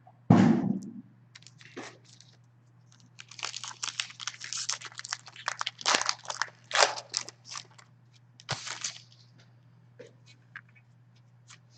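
A thump just at the start, then a trading-card pack wrapper torn open and crinkled for several seconds as a pack of Upper Deck Series 1 hockey cards is opened.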